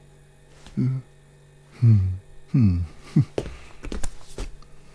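A cartoon man's short wordless vocal sounds: a few low grunts and hums, two of them falling in pitch. They are followed by several sharp clicks about three and a half to four and a half seconds in, as the fridge door is opened.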